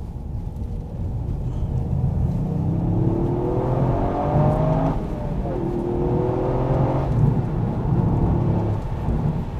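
Toyota GR Yaris's turbocharged three-cylinder engine accelerating hard, its pitch climbing through a gear, dropping sharply at an upshift about five seconds in, then climbing again before leveling off, over steady road and tyre rumble.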